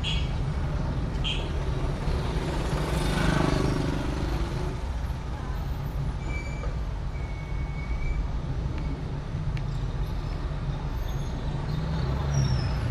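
Steady low engine and road drone heard from inside a car moving slowly through town traffic. A passing vehicle swells louder about three seconds in.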